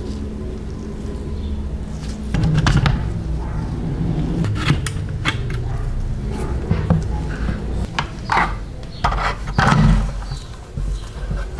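Small clicks, taps and knocks of a model truck's parts being handled and its wheels pulled off their axles on a workbench, over a steady low hum.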